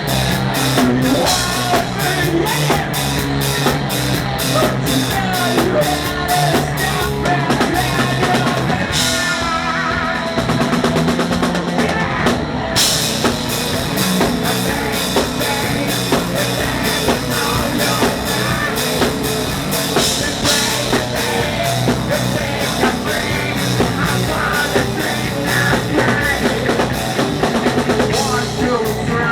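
Rock band playing loud: drum kit keeping a fast beat on the cymbals, with bass, guitars and a singing voice. About nine seconds in the drums drop out for a few seconds, then come back in with a crash.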